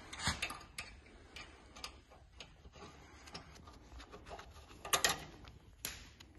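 Scattered clicks and light knocks of metal parts being handled and fitted together: the aluminium profile rail and steel plate of a table-saw milling-table attachment. A cluster of louder knocks comes about five seconds in, with another single knock just before the end.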